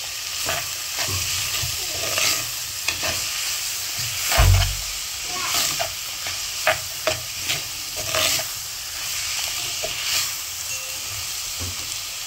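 Chopped onions frying in oil in a clay pot, sizzling steadily while a metal spatula stirs them with repeated scraping strokes against the pot. A single dull knock sounds about four and a half seconds in.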